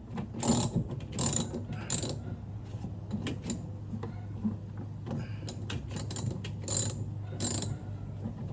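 Short bursts of mechanical clicking and ratcheting at irregular intervals, about a dozen in all, over a low steady hum.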